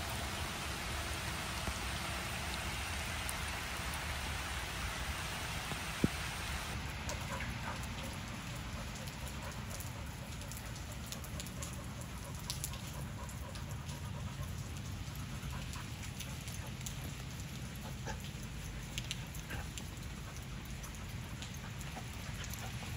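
Steady rain falling outdoors, an even hiss of drops. About seven seconds in it becomes lighter, with scattered drop ticks.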